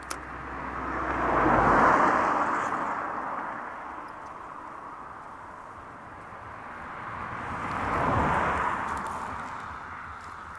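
Two cars pass one after the other on the road, their tyre noise swelling and fading away, the first about two seconds in and the second about eight seconds in. A sharp click sounds right at the start.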